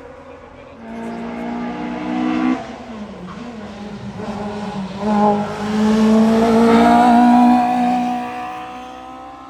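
VW Polo hillclimb race car engine accelerating hard. The pitch climbs, breaks off with a gear change about two and a half seconds in, then climbs again to its loudest before falling and fading near the end as the car passes.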